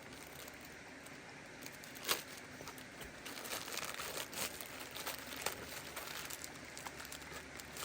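Plastic MRE ration pouches being handled and rummaged through, crinkling, with one louder sharp crackle about two seconds in and busier crinkling from about three seconds on.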